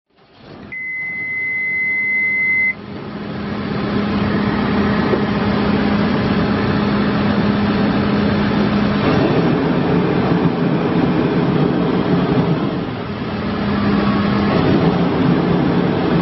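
Diesel engine of a 2013 Case 580N backhoe loader running steadily. A single steady electronic warning beep sounds for about two seconds near the start, then stops.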